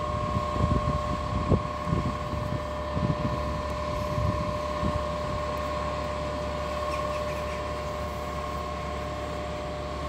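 Electric locomotive standing at a platform, its auxiliary equipment giving a steady two-tone whine, with irregular low gusts of wind on the microphone.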